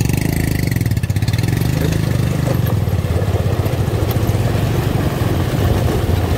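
Small motorcycle engine running steadily while it rides through shallow flood water, the front tyre splashing through the water.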